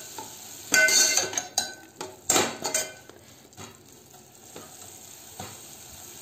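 Steel spoon stirring mint leaves as they fry in a little oil in a metal pot, scraping the pot over a soft sizzle. Two louder scrapes with a ringing metallic clink come about one and two and a half seconds in, followed by lighter stirring.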